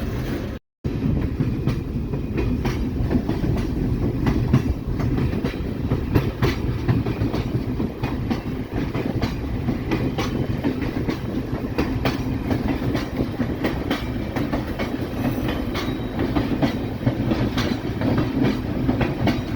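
Diesel locomotive moving along the track, its engine running steadily, with wheels clicking over rail joints.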